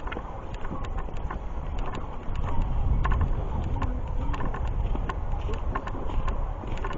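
Hikers' footsteps on a woodland trail: irregular crunching steps over a steady low rumble.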